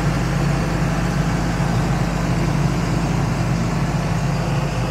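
Diesel engine of a KOTECH PDB 10-6 portable air compressor running steadily.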